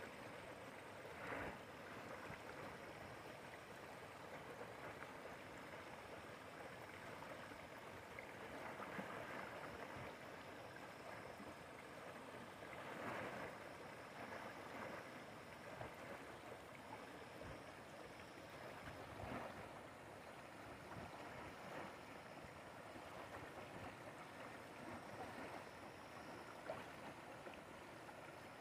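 Swollen river rushing over rocks in rapids: a faint, steady sound of running water with a few brief louder swells.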